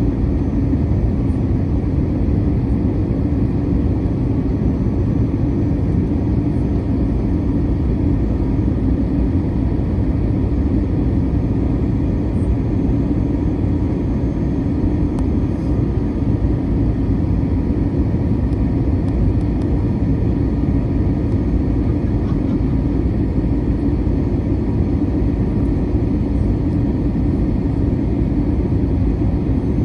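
Steady low cabin rumble of an Airbus A321-200, engine and airflow noise heard from inside the passenger cabin, even throughout with no thumps or surges.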